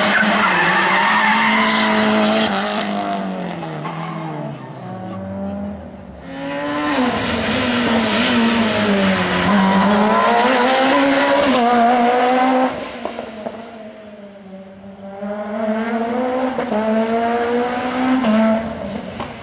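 Rally car engines revving hard through a tight slalom course, one car after another. The pitch climbs and drops again and again with gear changes and throttle lifts between chicanes. The tyres squeal for the first two or three seconds.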